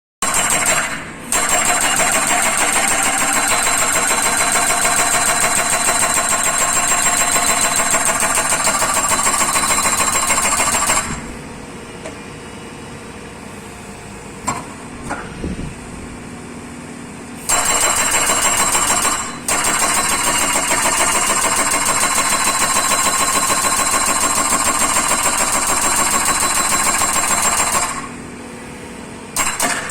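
Hydraulic breaker on a Hyundai Robex 140W-7 wheeled excavator hammering in rapid blows, in two long runs of about ten seconds each with short breaks. Between the runs only the excavator's engine is heard running, with a few light knocks.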